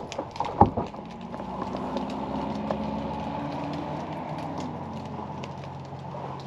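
A couple of footsteps crunching in snow at the start, then a low steady hum that swells and slowly fades, like a vehicle going by.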